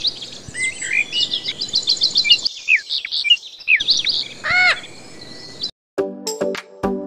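Birds chirping and whistling: quick runs of short high chirps and trills, with one louder call that rises and falls about four and a half seconds in. About six seconds in, the birds stop and plucked music notes begin.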